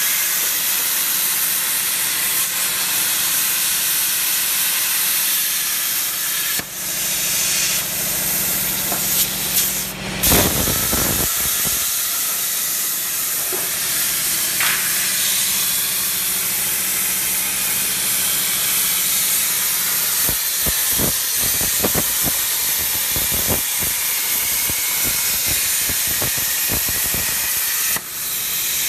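CNC plasma cutter torch cutting carbon steel plate: the arc and its air jet make a loud, steady hiss. Scattered short knocks sound over it in the second half.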